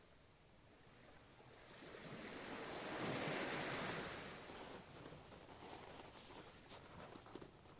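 Ocean wave breaking: a rush of surf that swells to its loudest about three seconds in, then fades into a fizzing wash with faint crackles.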